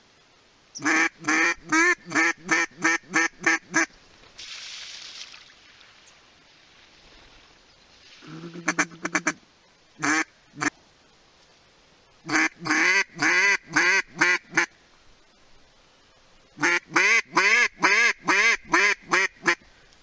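Duck call blown in three loud strings of quacks, about seven to ten quacks in each string. Between the strings come a short, rapid chatter and two single quacks.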